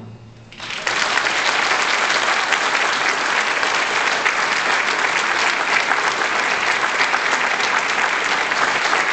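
The last chord of the orchestra fades out, and about a second in an audience breaks into steady, dense applause that carries on.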